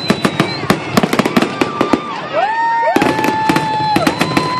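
Aerial fireworks display: a fast, steady run of sharp bangs and crackles from bursting shells. Several high whistling tones, each held about a second with a rise at the start and a fall at the end, sound over the bangs.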